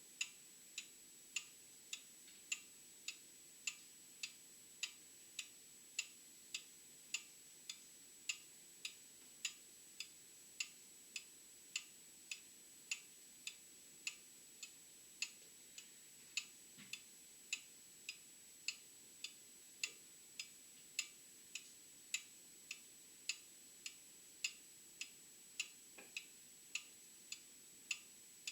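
An old mechanical clock ticking steadily, sharp regular ticks a little under two a second, with a faint steady high whine underneath.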